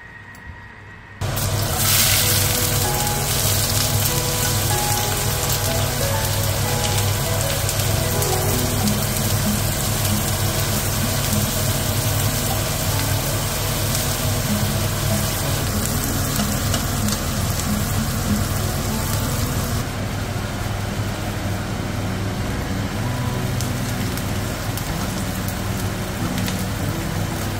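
Chopped onion and garlic frying in hot oil in a pan, a steady sizzle that starts about a second in and softens in its highest part about two-thirds of the way through, with background music.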